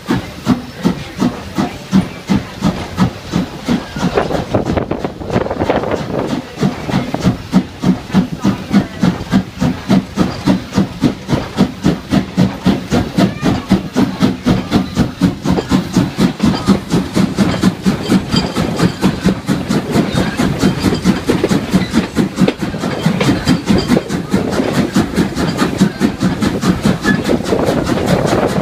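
Steam locomotive working along the line, its exhaust chuffing in a quick, even rhythm with steam hiss.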